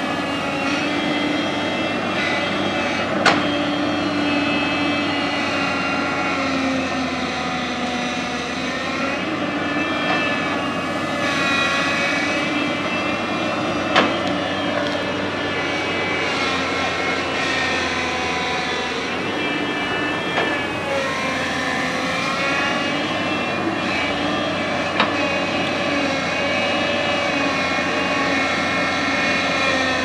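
JCB tracked excavator working: its diesel engine runs steadily under load, with a whine that rises and falls in pitch as the boom and bucket move. Three sharp knocks stand out over the engine.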